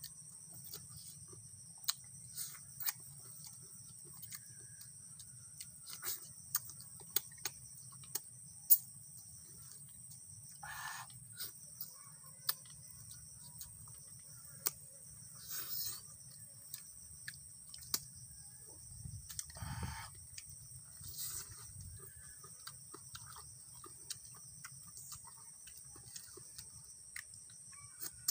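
Close-up eating sounds: chewing and lip-smacking in scattered sharp clicks as food is eaten by hand, over a steady high drone of insects.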